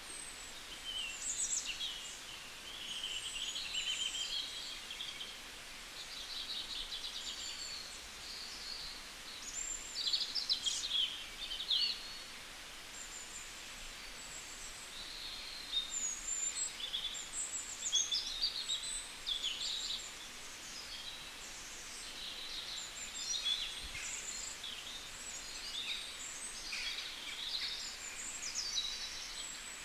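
Songbirds chirping and singing, many short high calls and trills overlapping, over a faint steady background hiss.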